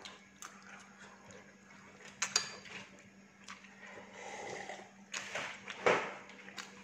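Metal spoon and fork clinking and scraping against a ceramic bowl of noodles: scattered sharp clicks, the loudest about two seconds in and again about six seconds in.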